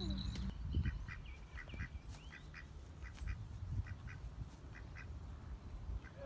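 A duck giving a string of short quacks, a dozen or so spread over several seconds, over a low rumble.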